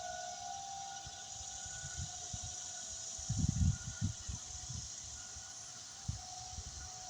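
Distant tornado warning siren sounding a steady, unchanging pitch as part of a scheduled test. It fades away after the first second and swells back near the end, as a rotating siren does. Low buffeting on the microphone is the loudest sound, a little past the middle.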